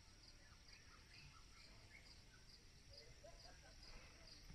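Faint insect chirping in wet forest: an even, high pulse repeating about twice a second, with a few soft lower chirps around three seconds in.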